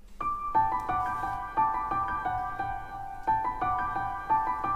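Background music: a gentle melody of struck notes that ring on briefly, in a piano-like tone.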